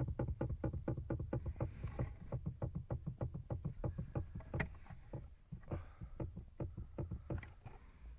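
Rapid, regular knocking, about five or six knocks a second, thinning out and turning irregular in the second half: the Ford Focus 2's heater core knocking in its mounting behind the dash. This loose heater core turned out to be the source of the car's knock over small bumps.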